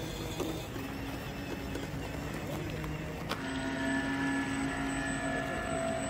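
Steady electric whine of radio-controlled model motors. A sharp click a little past halfway is followed by a louder, higher whine.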